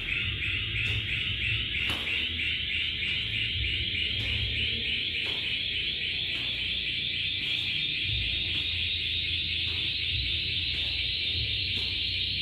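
A loud, steady high-pitched buzz that pulses rapidly for the first few seconds and then holds even, with uneven low thumps underneath.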